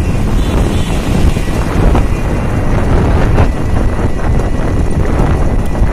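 Wind buffeting the phone's microphone while riding in an open rickshaw, a steady rumbling rush with road and traffic noise underneath.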